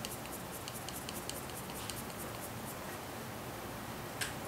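Paper quilling strip being rolled tightly onto a quilling pen: faint, irregular small paper ticks and crackles, with one sharper click about four seconds in.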